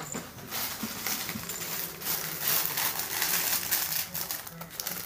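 Close rustling and crinkling with many small clicks, louder through the middle.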